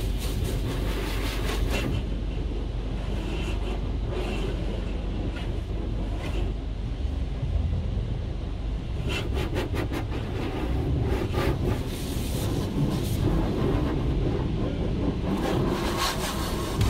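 Automatic tunnel car wash heard from inside a car's cabin: a steady low noise of the wash machinery and water spraying over the glass, with bursts of rapid tapping about nine seconds in and again near the end.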